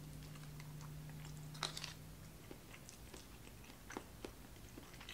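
Faint chewing of a mouthful of beef and potato stew, with a few soft clicks about two seconds in and again near four seconds.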